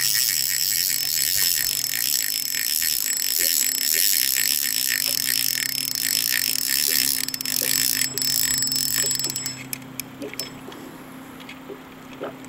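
Fishing reel cranked steadily to retrieve a cast crankbait: an even, fast ticking whir of the reel's gears that stops near the end, leaving a few faint clicks.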